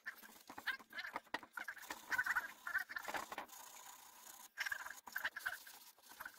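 Hand sanding of a varnished carved wooden piece: abrasive paper rubbed back and forth in quick, uneven scratchy strokes.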